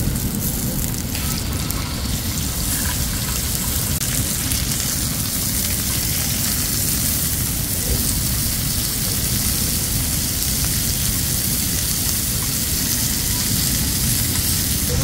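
Slices of pork jowl sizzling on a hot seasoned iron griddle: a steady, even hiss over a low rumble.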